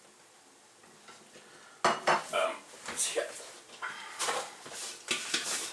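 Metal cookware clinking and clattering: a run of sharp knocks starting about two seconds in, as a lid is set on a pot of boiling giblets and pans and utensils are handled.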